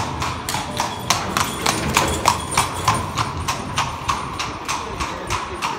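Horse hooves clip-clopping on a hard path as a horse-drawn carriage passes, a steady run of sharp strikes about four a second.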